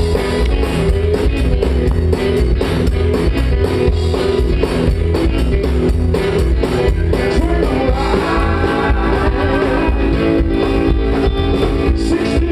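Live country-rock band playing through a PA: upright double bass, electric guitar and drum kit, with a steady beat.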